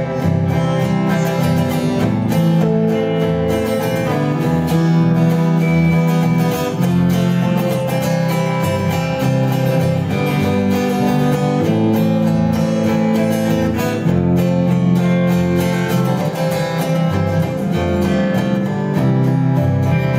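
Live band playing an instrumental passage: strummed acoustic guitar over electric bass, with an electric guitar.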